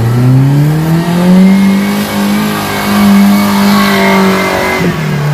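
Off-road vehicle's engine revving up over about a second and held at high revs for a few seconds, then dropping sharply near the end as the throttle comes off.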